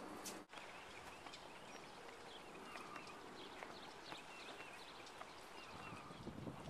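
Small birds chirping repeatedly over a faint outdoor hush. Near the end, wind rumbles on the microphone.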